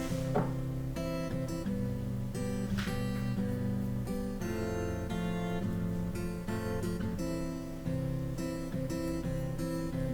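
Background acoustic guitar music, with chords changing every second or so.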